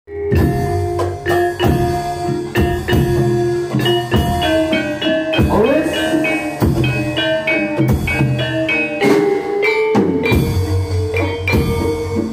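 Music with steady drumming and a melody played on pitched, mallet-struck percussion.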